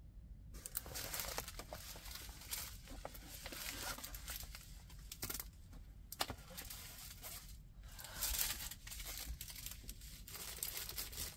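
Packaging of a diamond painting kit crinkling and rustling as it is handled, in irregular bursts with short pauses.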